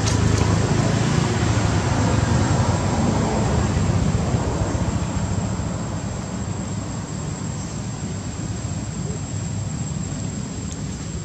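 A low, steady motor rumble, loudest in the first few seconds and easing off a little about five seconds in, with a faint steady high whine underneath.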